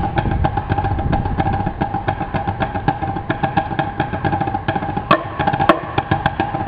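Two marching snare drums played together in a fast drum-corps snare passage: rapid sticking and rolls with the drums' high ring, and two sharp accented hits about half a second apart near the end.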